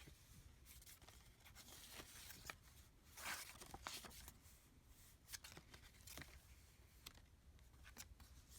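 Faint rustling and soft clicks of paper pages being turned and handled in a handmade junk journal, with one louder page flip about three seconds in.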